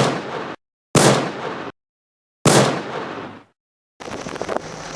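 Gunshot sound effects dubbed in during editing: a shot ringing out at the start, then two more about a second and two and a half seconds in, each with a long fading echo and cut off into dead silence. Ordinary outdoor ambience comes back near the end.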